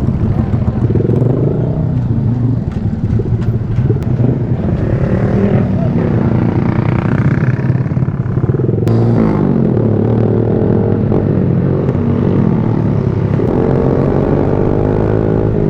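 Motorcycle engine running through an open aftermarket VMAX muffler while riding. Its pitch falls and rises with throttle and gear changes.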